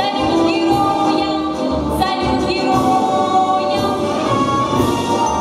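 A teenage girl's solo pop vocal, sung live into a handheld microphone over backing music with a steady beat, with long held notes.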